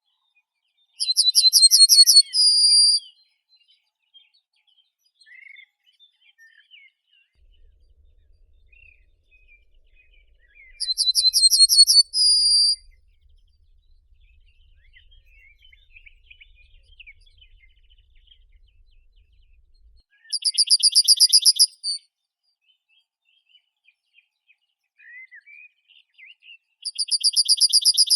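A songbird singing a fast, even trill of repeated high notes, each song about two seconds long and ending in a short, different closing note. The song comes four times, roughly every nine seconds, with faint chirps from other birds in between.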